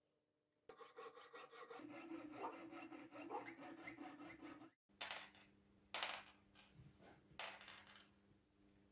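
Fine-bladed jeweler's saw cutting through a coil of copper wire held in a vise, a rapid run of even scraping strokes that stops suddenly. Then three short, separate knocks.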